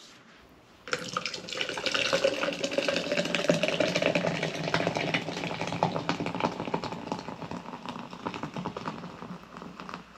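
Zero Sugar Mountain Dew being poured, a fizzing, crackling pour that starts suddenly about a second in and fades toward the end.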